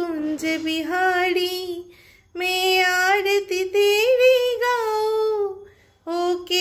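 A high solo voice singing a Hindi devotional aarti to Krishna in three long, held phrases, broken by two short pauses.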